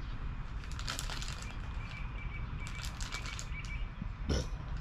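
Rustling and small clicks of a quad's wiring harness and plastic plug connectors being handled, with one louder knock near the end, over a steady low background rumble.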